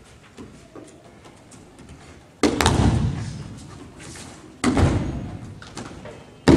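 Loud slaps of a body hitting the tatami as the thrown partner takes a breakfall: one about two and a half seconds in, another near five seconds, and a third starting right at the end. Each one rings on in a large hall.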